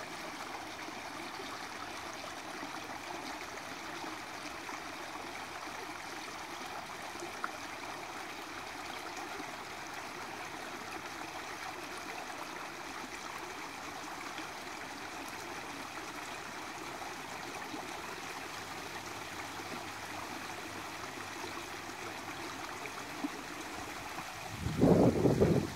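Small creek running steadily where it spills through a jam of fallen logs and leaves in a shallow cascade. Near the end there is a brief, loud low rumble.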